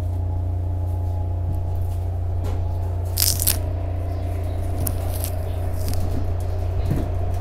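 Interior of a SEPTA Market-Frankford Line el car moving out of a station: a steady low drone from the running train, with a few steady tones over it. A brief high rattle comes about three seconds in.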